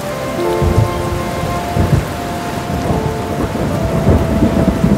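Steady heavy rain with thunder rumbling in low rolls, swelling about a second in, again near two seconds and most strongly about four seconds in. Soft held musical notes sit underneath.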